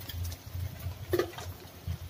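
Beaten egg frying in oil in a frying pan, over a steady low rumble, with a short sharp knock about a second in and a smaller one near the end.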